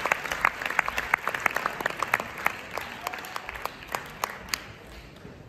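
Audience applauding, the clapping thinning out and fading, with a last few scattered claps about four and a half seconds in.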